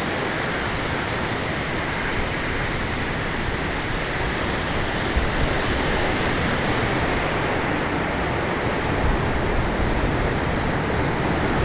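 Steady rush of ocean surf with wind, an even roar without breaks.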